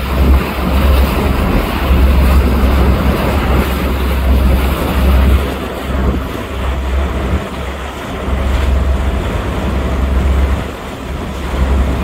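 A motorboat under way on choppy sea: rushing water from the hull and wake, with wind buffeting the microphone in a low rumble that swells and fades every second or two.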